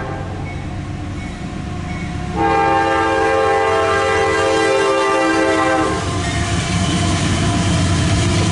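CSX coal train's lead diesel locomotive sounding its air horn in one long blast of about three and a half seconds, a chord of several tones, over the low steady running of the approaching locomotives. From about six seconds in the locomotives pass close, and the engine and wheel noise grows louder.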